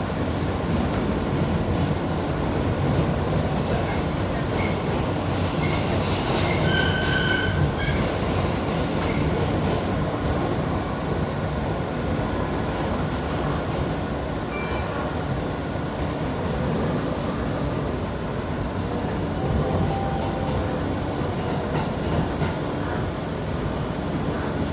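New York City Subway R train heard from inside the car while running between stations: a steady, loud rumble of wheels on the track. About seven seconds in, a brief high-pitched squeal rings out over it.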